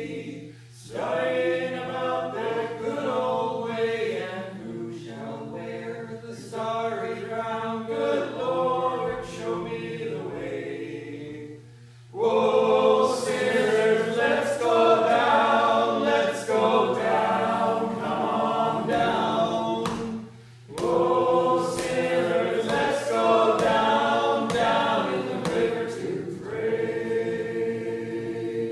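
Several voices singing together in harmony, in long phrases with short breaks about a second in, about twelve seconds in and about twenty seconds in. A steady low hum runs underneath.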